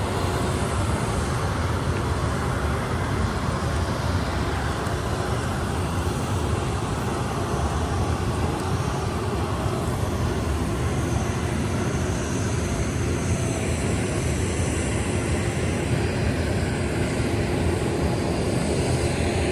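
Steady low rumbling noise at an even level, with a faint high whine joining about halfway through.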